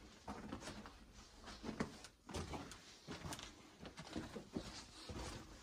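Irregular scraping, rustling and soft knocks of people clambering through a narrow rock cave passage.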